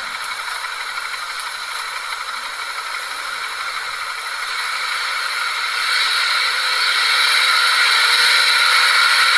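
Truck engine running under load as it drives through deep mud, heard as a steady hissing rush with little low end that grows louder from about halfway through.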